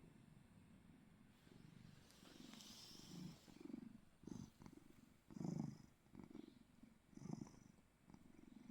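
A dozing cat purring faintly, the low rumble swelling and easing with each breath about every one and a half to two seconds.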